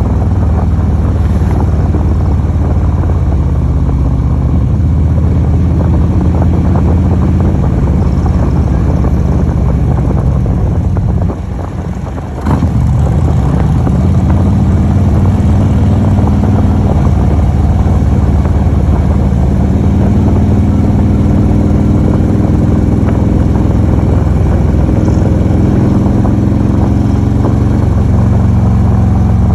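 Motorcycle engine running at riding speed, mixed with wind rush over the microphone. The engine note rises and falls as the throttle changes. About eleven seconds in it drops away briefly, then comes back in with a short sharp knock.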